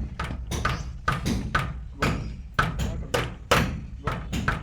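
Irregular knocks and taps from building work, about two or three a second, each with a short ringing tail, over a low rumble.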